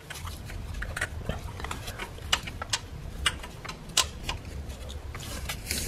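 Scattered light metallic clicks and taps, irregular in timing, as a 13 mm deep socket is worked onto the stud-topped upper mounting bolt of the starter. The sharpest click comes about four seconds in.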